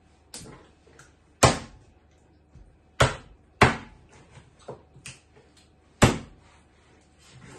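Kitchen knife chopping raw chicken thighs on a wooden cutting board: about five sharp chops, loudest around one and a half, three and six seconds in, with a few lighter taps between.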